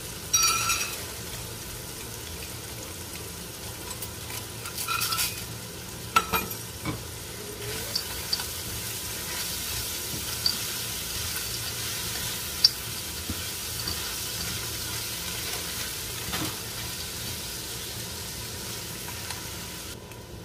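Farfalle, mushrooms and onions sizzling steadily in a hot frying pan while being stirred with a wooden utensil, with occasional knocks and scrapes of the utensil against the pan.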